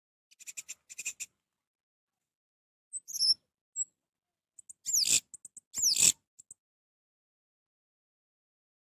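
Orange-headed thrush calling in short separate bursts: a few quick clicking notes, then brief chirps, then two louder falling sweeps about five and six seconds in.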